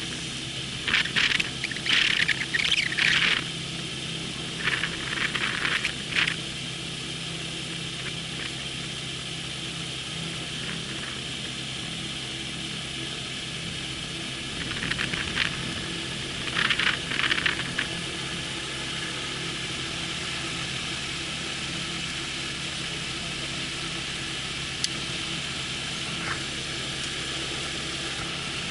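AutoGyro MTO Sport gyroplane's engine idling steadily while taxiing. Clusters of short high-pitched bursts come over it in the first six seconds and again around the middle.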